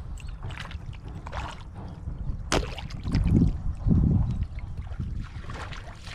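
Splashing and sloshing in shallow muddy water as a catfish thrashes. A steady low rumble runs underneath, with a sharp click about two and a half seconds in and two heavy low thuds about a second apart soon after.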